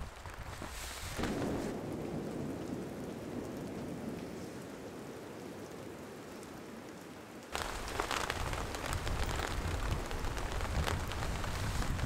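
Steady rainfall in a conifer forest, with thunder rumbling low underneath. About seven and a half seconds in it abruptly becomes louder rain, with many sharp individual drop hits over the rumble.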